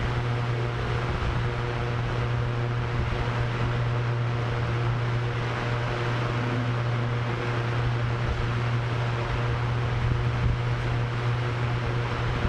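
Drone propellers running with a steady low hum and a few faint higher tones, mixed with a rush of wind.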